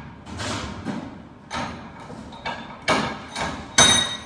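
Irregular metal knocks and clanks from an air conditioner fan motor being handled on a metal workbench, about seven in all. The loudest comes near the end and rings briefly like struck metal.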